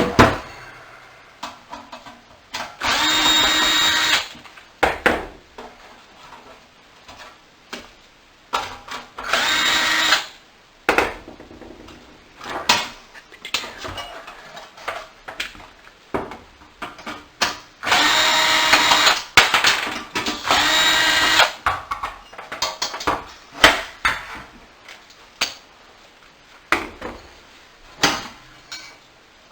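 Cordless drill or electric screwdriver whirring in four short runs, backing out screws from the space heater's back panel, with clicks and clatter of plastic and screws being handled between runs.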